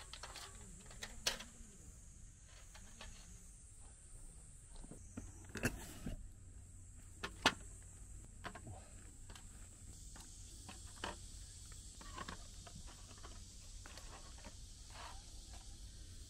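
Scattered light clicks, taps and rustles of plastic takeout containers and plastic wrap being handled and set down on a camp table, over a faint steady high hiss.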